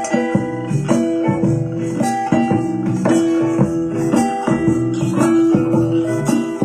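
Music with guitar and percussion and a regular beat, played on an Eggel Terra 3 Mini portable Bluetooth speaker in a sound test, with little deep bass.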